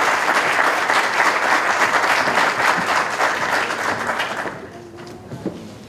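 Audience applauding, fading out about four and a half seconds in.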